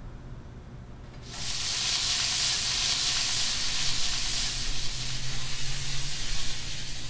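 Butter sizzling in a hot frying pan. The sizzle starts suddenly just over a second in and then holds steady and loud.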